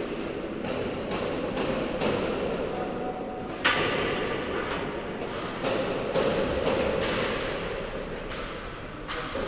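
Footsteps on a hard floor at walking pace, about two steps a second, each step echoing, over a steady background hum.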